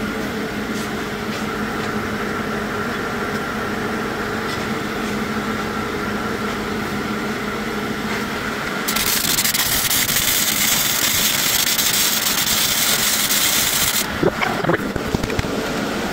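A steady fan hum, then about nine seconds in an electric arc welder strikes and crackles evenly for about five seconds at a freshly turned-down current setting, ending with a few sharp clicks.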